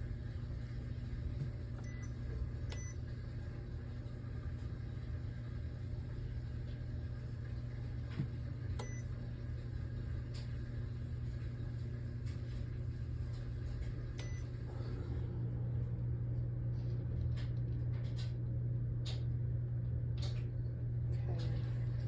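Beautiful by Drew Barrymore drip coffeemaker running after being switched to brew: a steady low hum that steps up and grows louder about fifteen seconds in, with scattered faint clicks and ticks.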